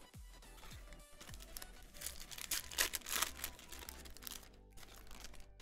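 Foil card-pack wrapper crinkling and being torn open, loudest about two to three and a half seconds in. Background music with a bass beat plays under it.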